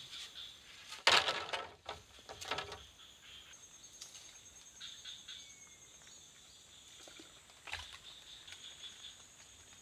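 Steady high insect chirring in the forest, broken by two loud, sudden noisy sounds about a second in and at about two and a half seconds, and a shorter one near the end.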